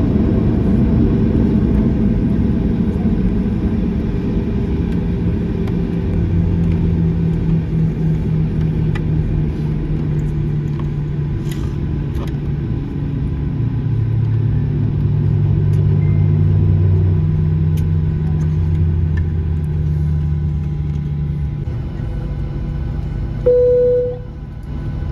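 Cabin noise of a Boeing 737-800 taxiing after landing: the engines' steady low rumble, with its hum shifting in pitch as the engine speed changes. Near the end a brief single tone sounds, and the rumble then drops.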